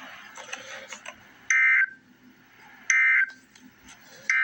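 Emergency Alert System end-of-message (EOM) data bursts: three short, loud, identical buzzing bursts of digital tone, evenly spaced, marking the end of the alert. A faint noisy hiss comes before the first burst.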